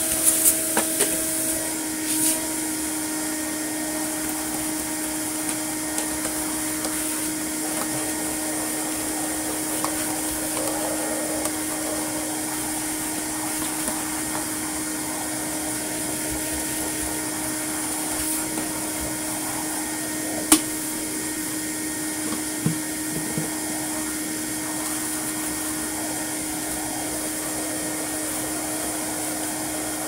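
A vacuum cleaner running steadily with an even motor hum, its hose and dusting brush sucking dust out of a pleated vacuum filter. A single sharp click comes about two-thirds of the way through.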